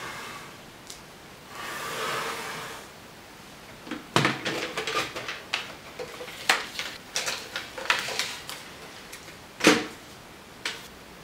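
Plastic clicks and knocks as a Zebra desktop thermal label printer is opened, the label web threaded through it and the lid shut, ending in one loud snap of the lid closing. Before that, about two seconds in, a short rustle of the paper label roll being handled on its holder.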